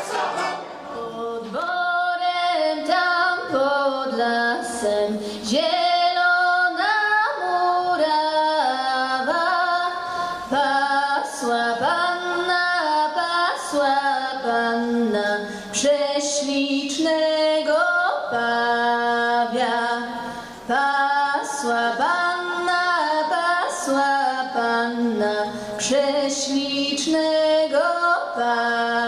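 A young woman singing a Polish folk song solo, one unaccompanied melody line.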